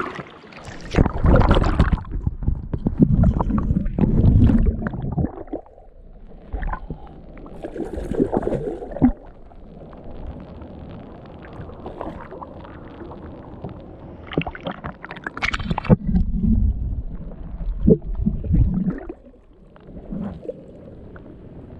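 Water splashing and sloshing around anglers wading, in uneven bursts that are loudest from about a second in and again near the three-quarter mark, with quieter lapping between.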